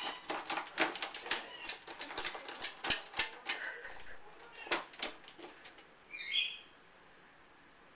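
A dog rummaging with its nose in a plastic caddy of cleaning supplies: repeated rustling, knocking and rattling of bottles and rags, followed by one short high-pitched squeak about six seconds in.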